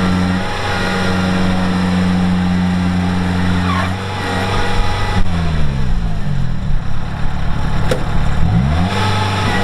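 Farm tractor's diesel engine running steadily at high revs. About five seconds in the revs drop sharply and it chugs at low speed for a few seconds, then revs back up near the end.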